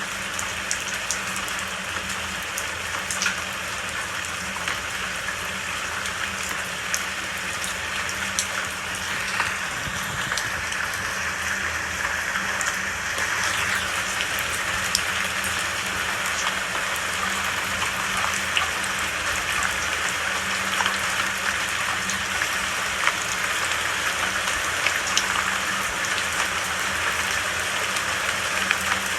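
Steady rain falling, with single drops ticking sharply here and there, over a faint low steady hum.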